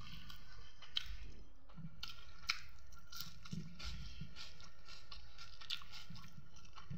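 A person chewing chicken curry and rice with the mouth closed: a steady run of wet smacks and clicks, with a few sharper clicks.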